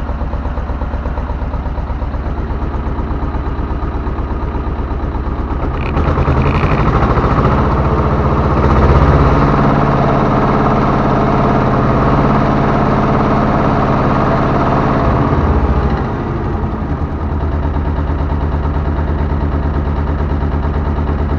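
T-25 Vladimirets tractor's two-cylinder air-cooled D-21 diesel idling, then revved up to maximum about six seconds in and held there for about ten seconds before dropping back to idle. It is a test run to check the oil pressure.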